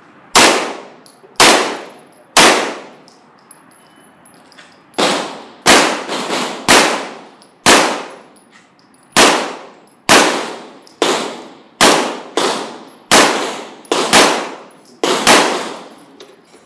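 9mm Glock pistol fired in strings in a large hall, each shot sharp with a ringing echo. Three shots come about a second apart, then after a short pause a fast run of a dozen or so shots at roughly two a second.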